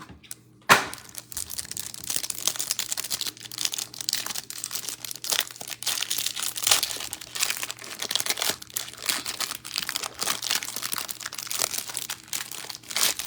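Plastic shrink-wrap being torn and crinkled off a trading-card hanger box: a sharp snap a little under a second in, then continuous irregular crackling and tearing of the wrapper as it is pulled away and the box opened.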